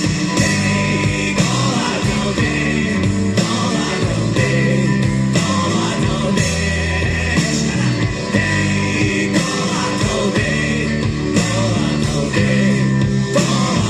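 Rock music with a steady beat: a band playing, with no sung words.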